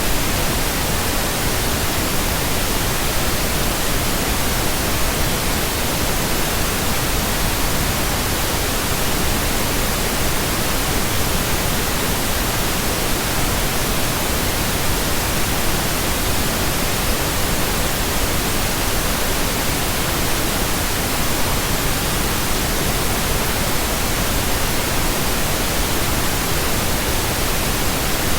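Steady pink noise: an even, unbroken hiss that does not change.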